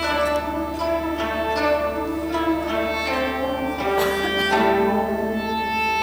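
Traditional Chinese ensemble music: long plucked zithers play a running line of notes, each ringing and decaying, over sustained held tones.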